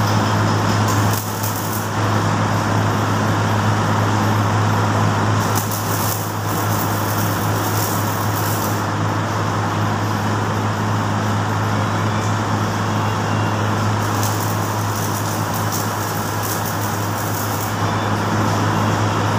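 Electric arc welding on the metal frame of a hand trolley: the arc crackles and sizzles continuously over a steady low hum, breaking off briefly about a second in and again around six seconds in.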